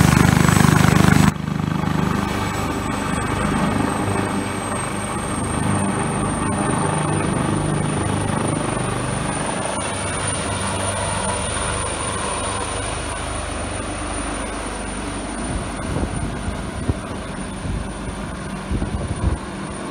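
Air-ambulance helicopter lifting off and climbing away: steady rotor and turbine noise with a thin high whine that rises slightly in pitch, loudest at the start and slowly fading as it departs.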